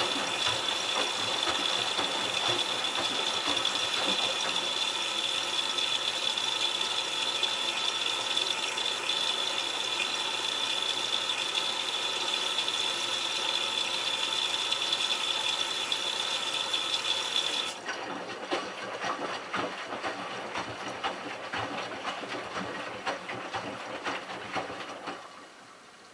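Miele Touchtronic W3033 front-loading washer taking in water: a steady rushing hiss with a high whine as water sprays into the drum, over the clicking and rattling of the turning drum and load. About two-thirds of the way through, the inflow cuts off abruptly, leaving the quieter clicking of the drum, which drops away near the end.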